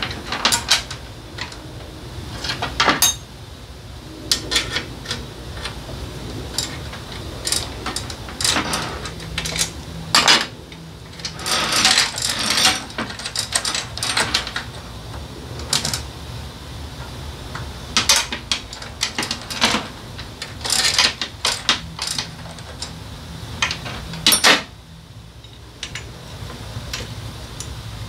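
Motorcycle roller drive chain clinking and rattling as it is worked by hand around the rear sprocket, irregular metal-on-metal clicks coming in clusters, over a steady low hum. The chain has been shortened to suit a smaller rear sprocket and is being refitted.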